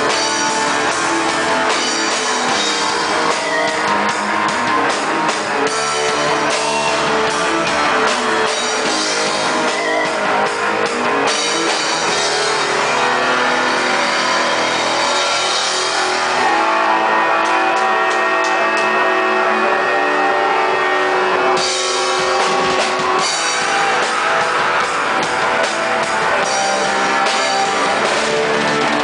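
Black metal band playing live: distorted electric guitars over a drum kit, dense and loud throughout. The brightest, hissing top of the sound falls away for about ten seconds in the middle before returning.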